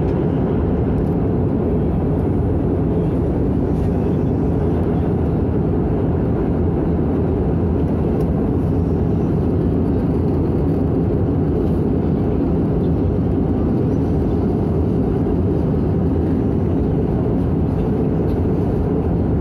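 Steady cabin noise of an Airbus A320 in flight, heard from inside the cabin: a low, even rumble of its CFM56 engines and airflow.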